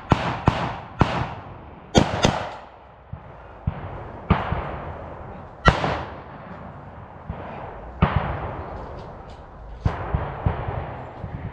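Small-arms gunfire firing blanks: a quick volley of cracks in the first couple of seconds, then single shots every second or two, each echoing away.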